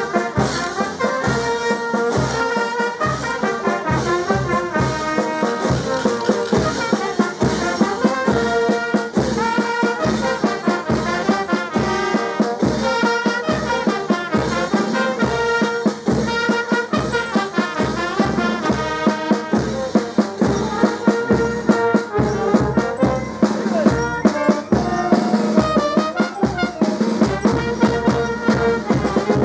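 Brass band with trumpets and trombones playing dance music over a steady, evenly spaced drum beat.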